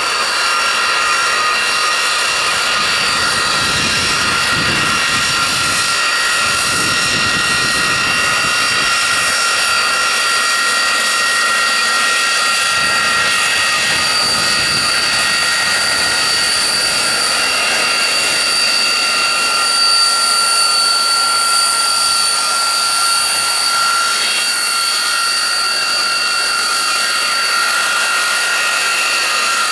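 Jet engine of a CSX rail-mounted jet snowblower running steadily: a loud, high-pitched whine over a rushing hiss.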